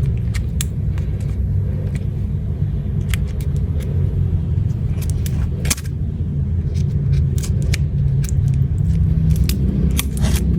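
A steady low rumble throughout, with scattered short sharp clicks and snips as plastic card packaging is cut and worked open with scissors.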